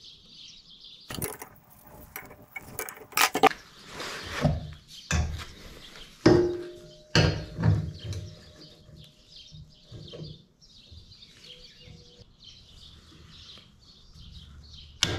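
Steel mounting tabs and hand tools being handled and set down: scattered clanks, taps and scrapes of metal on metal. One clank about six seconds in rings on briefly.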